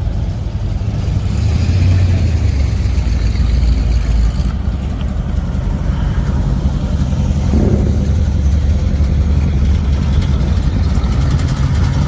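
Engines of classic cars and hot rods running as they drive slowly past one after another, a deep, low-pitched exhaust note that grows louder about a second in and stays strong.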